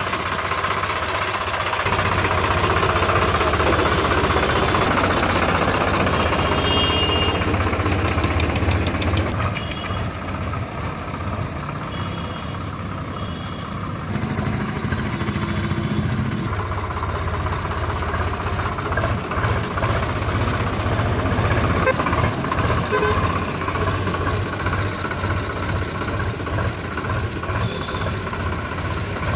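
Swaraj 735 XT tractor's three-cylinder diesel engine running as the tractor is driven. It is loudest in the first several seconds and quieter for a few seconds around the middle.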